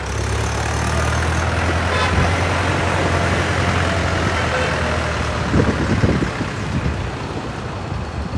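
Road traffic: a heavy vehicle's engine running with a low, steady hum that fades after about five seconds. A few knocks follow about five and a half seconds in.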